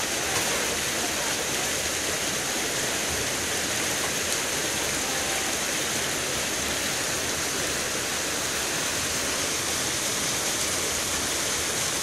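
Water pouring steadily over the concrete weirs of a fish ladder, a constant, even rush of splashing.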